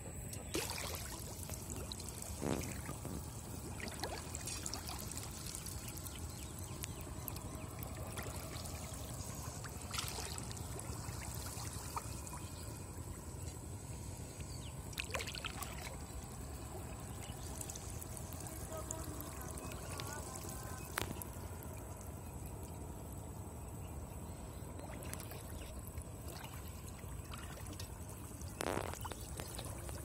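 Shallow water splashing and trickling as hands pull at a fishing net around a metal pot, with a few sharp splashes or knocks now and then.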